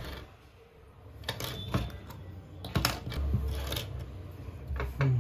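Hard plastic figure parts clicking and rattling as they are handled and fitted together, with a few knocks on a wooden tabletop; irregular separate clicks.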